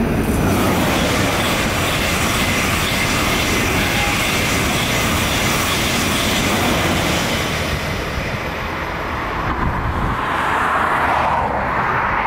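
ICE high-speed train passing beneath at speed: a loud, steady rushing of wheels on the rails and air around the long string of cars.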